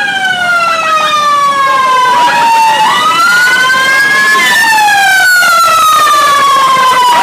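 Bus telolet basuri horn playing several tones together in long slides: the chord glides slowly down, jumps back up about three seconds in and climbs, then glides down again through the second half.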